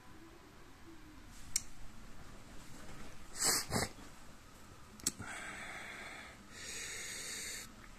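A man breathing close to the microphone: two quick sharp sniffs about three and a half seconds in, then two longer breaths out. A faint tick and a click come before them.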